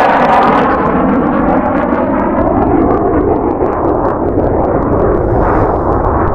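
Jet aircraft passing low overhead: a loud roar whose pitch bands sweep downward as it goes by, settling into a low rumble as it moves away.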